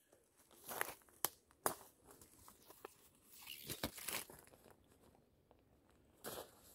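Faint rustling and crackling of twigs and dry leaf litter as someone moves about in woodland undergrowth, with a few sharp snaps of twigs.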